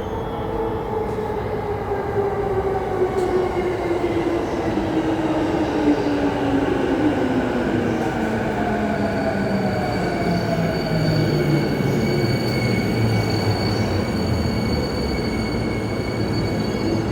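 An electric train's traction motor whine falls steadily in pitch as the train brakes and slows, over a constant wheel-and-rail rumble. Thin high steady tones join about halfway through. The train is plausibly a JR East E233-5000 series on the Keiyo Line.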